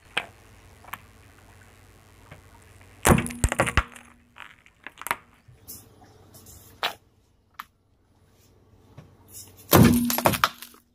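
Small decorative vase cracking and breaking under a slowly rolling car tyre. A loud cluster of cracks comes about three seconds in, single snaps and crunches follow, and another loud burst of breaking comes near the end.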